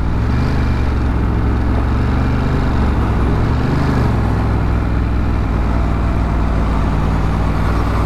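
Ducati Monster's V-twin engine running at a steady highway cruise, heard with wind and road noise from riding in traffic.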